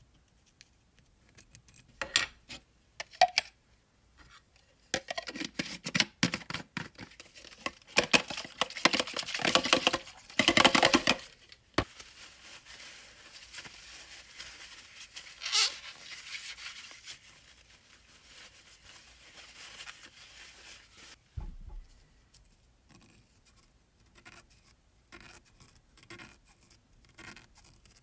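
Hand cleaning of the rusty parts of an old Snap-on 1/4-inch ratchet: bursts of rough scraping and scrubbing with clicks, loudest about ten seconds in, then a quieter steady hiss, then scattered light ticks.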